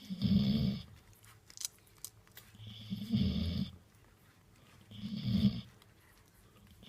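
A golden retriever snoring deeply, three long snores about two and a half seconds apart.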